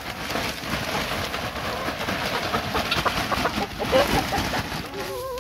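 Wood-shaving bedding pouring and scattering out of a rustling plastic sack onto a coop floor: a dense, crackly rustle that stops just before the end.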